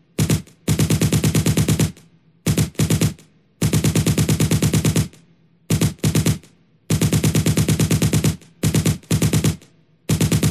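Machine gun firing rapidly in repeated bursts, about ten rounds a second. The bursts vary from a few shots to over a second long, with short pauses between them.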